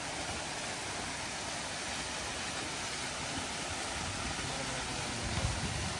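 Steady outdoor background hiss in dense bush, with a brief low rumble about five and a half seconds in.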